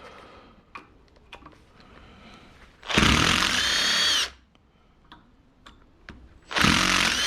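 Power drill run in two bursts of about a second each, spinning up and winding down, while a paintball marker part is taken apart; small clicks and handling knocks between the bursts.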